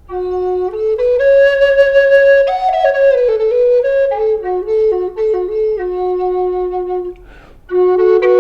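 Handmade Spanish cedar Native American-style flute in F♯ minor playing a slow melody in a single line, moving stepwise up from the low F♯ and back down. There is a short breath break near the end before the low note sounds again.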